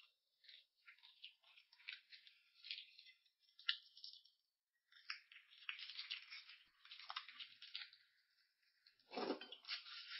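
Faint, irregular crackling and rustling with scattered sharp clicks, in two stretches, and a brief fuller rustle near the end.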